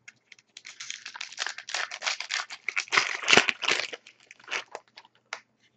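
Trading-card pack wrapper being torn open and crinkled by hand: a dense run of tearing and crinkling for about three seconds, then a few light clicks and rustles of handling.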